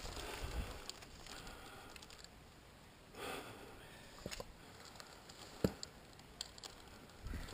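Faint scattered clicks, knocks and scuffs of climbing on a chain-protected rock face: hands, boots and gear on rock and steel chain, with a soft rush about three seconds in and one sharper click later on.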